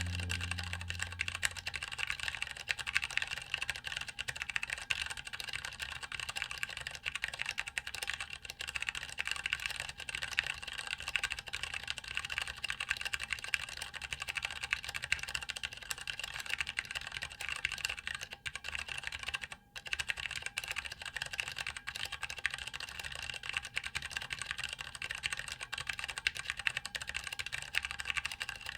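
Fast, continuous typing on a MiniVan 40% mechanical keyboard with Cherry MX Tactile Grey switches, PBT keycaps and an aluminium case: a dense stream of key clicks and keycap clacks, with one brief pause about two-thirds of the way through.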